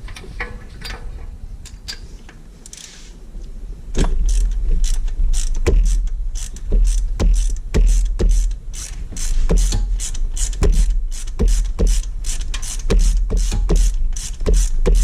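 Ratchet wrench clicking in quick, regular strokes, starting about four seconds in, during a spark plug change on a 4.8L Vortec V8. A low rumble runs underneath the clicks.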